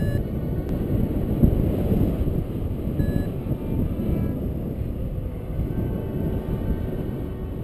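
Wind rushing over the camera microphone of a paraglider in flight, a steady low noise, with a couple of faint short beeps from the flight variometer.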